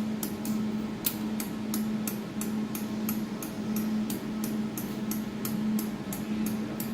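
A jewelry laser welding machine running with a steady low hum, with light, even clicks about three times a second.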